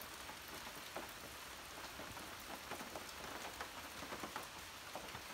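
Steady rain falling on and around a metal-roofed porch, heard from underneath, with scattered louder drops through it.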